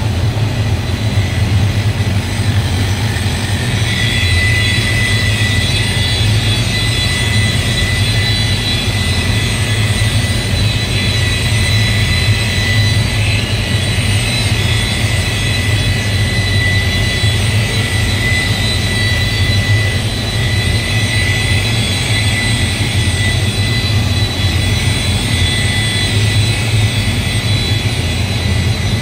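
Steady machine drone with a low hum, joined about four seconds in by a thin, steady high whine.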